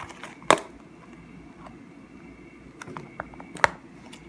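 Clear plastic coin-holder pages being handled and turned, giving a few sharp crinkles and clicks. The loudest comes about half a second in and another near the end.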